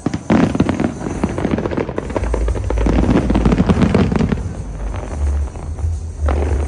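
Large fireworks display bursting and crackling. A sudden loud burst of rapid crackling and popping comes right at the start and another near the end, over a low booming rumble.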